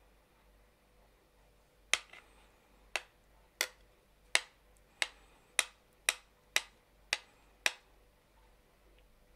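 A metal spoon tapping sharply on a hard plate surface, ten crisp clinks that start about two seconds in and come gradually faster.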